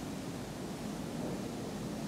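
Steady low rumbling outdoor background noise, with no distinct events.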